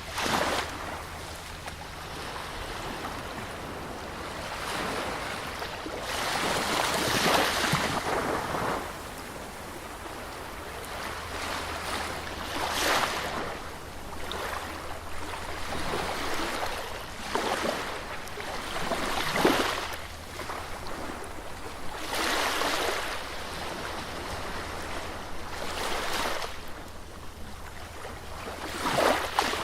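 Sea surf on a beach: waves break and wash in one after another every few seconds, each surge rising and falling over a steady rush of water.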